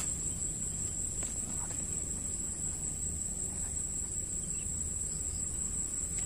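Insect chorus trilling steadily at a high pitch, over a low, even rumble.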